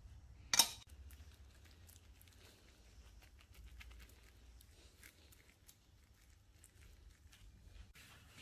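Wet hands pressing and shaping lamb kofta mince around a skewer: faint soft squishing and patting with scattered light ticks, and one sharp knock about half a second in.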